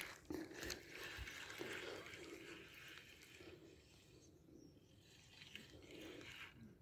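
Near silence: faint outdoor ambience with a few soft handling knocks in the first second.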